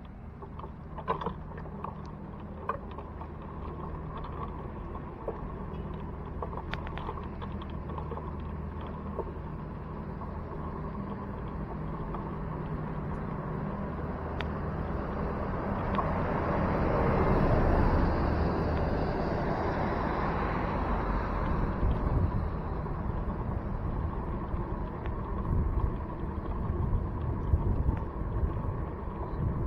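A motor vehicle's engine runs with a steady low hum. A vehicle then passes, its noise swelling to a peak a little past halfway and fading again, with a few small clicks scattered through.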